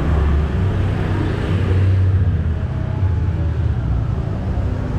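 Street traffic: a steady, loud low engine rumble from passing vehicles.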